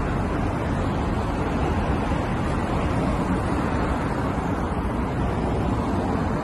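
Steady city road traffic: cars passing on the street, a continuous rushing noise with a low rumble.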